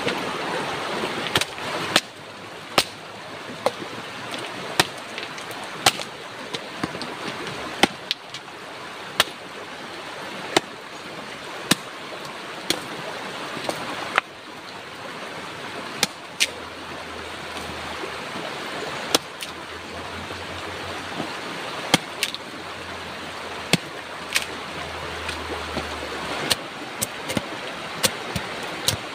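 Machete blade striking and cutting into wooden sticks, one sharp chop about every second, over the steady rush of a shallow rocky river.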